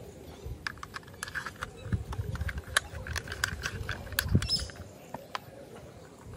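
Small plastic toy wheels and a plastic toy car body being handled and pressed together: a run of light, sharp plastic clicks and taps, thickest in the middle, with one duller knock about four seconds in.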